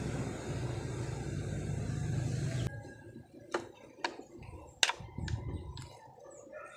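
A steady low hum that cuts off abruptly about two and a half seconds in, followed by a few sharp plastic clicks and knocks as a pressure washer's trigger gun housing and lance are fitted together by hand.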